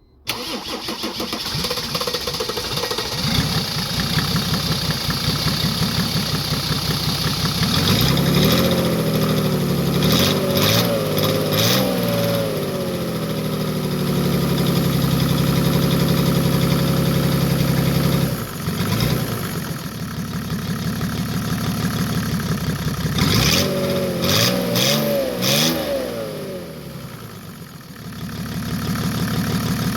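Mercedes OM603 inline-six diesel engine running on its newly installed injection pump, revved up and back down twice and settling back to idle in between.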